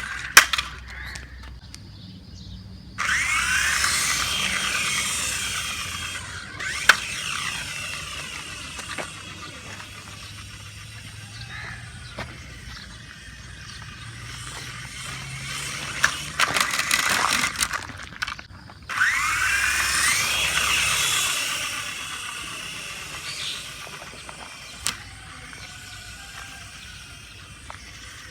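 Electric motor and rotor of a small RC helicopter whining as they spin up. This happens twice, each time starting suddenly with a rising pitch and then fading over several seconds. Sharp clicks and a cluster of knocks fall in between.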